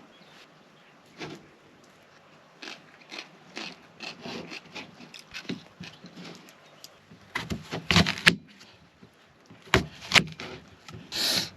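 Scattered small scrapes, rubs and knocks of hand-handled kitchen items while food is prepared, with a few louder knocks around 8 and 10 seconds and a short noisy burst near the end.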